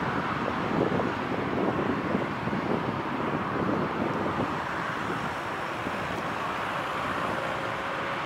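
Jet engines of a Boeing 737 airliner taxiing on the airfield: a steady rushing hum that eases slightly, with wind noise on the microphone and a faint whine rising near the end.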